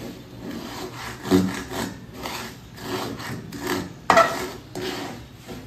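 Metal spatula scraping and stirring a thick sugar mixture in a metal wok: a run of repeated rasping strokes, the loudest about four seconds in.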